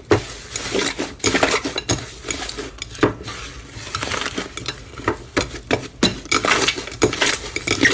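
Edible slime being stirred in a bowl, a utensil clinking and scraping against the bowl in quick, irregular strokes.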